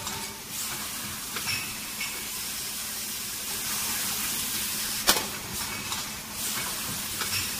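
Automatic bottle screen-printing machine running: a steady mechanical hiss over a low hum, with light clicks, and a sharp clack about five seconds in followed by a hiss lasting about a second.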